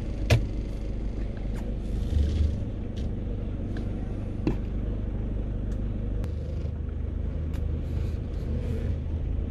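Steady low rumble of an underground car park, with scattered sharp clicks and knocks from metal shopping carts being pushed along the queue, the loudest knock about a third of a second in.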